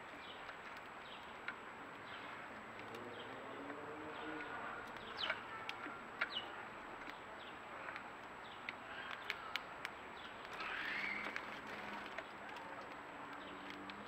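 House sparrows at a seed feeder: a few short, sharp chirps, the clearest about five and six seconds in and again near eleven seconds, with many faint ticks of beaks pecking seed in the feeder's tray.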